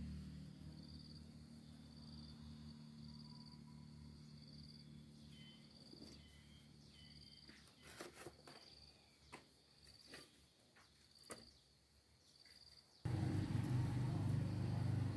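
An insect chirping evenly, a short high chirp about one and a half times a second, while background music fades out. A few sharp knocks come in the second half, and near the end a louder low sound starts abruptly.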